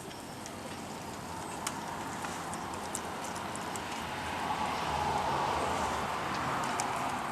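Rustling of dense juniper foliage with light clicks as aluminium bonsai wire is wrapped around a branch by hand; the rustling grows louder over the last few seconds.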